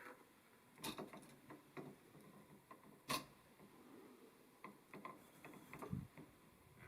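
Faint, scattered clicks and taps of hands working multimeter test leads and a wall switch, the sharpest click about three seconds in, with a run of small ticks near the end.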